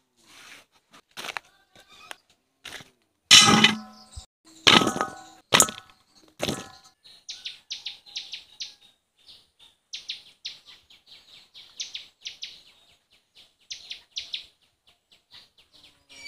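A few sharp knocks and loud metallic clangs with a brief ring in the first half. From about halfway in, a small bird chirps in quick series of short, high notes.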